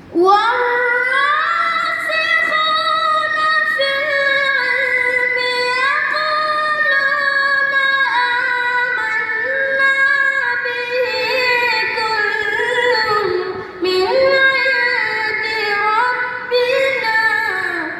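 A boy's high voice reciting the Quran in melodic tarannum style: one long, ornamented phrase sung almost without a break, opening with a rising glide and ending just before the end.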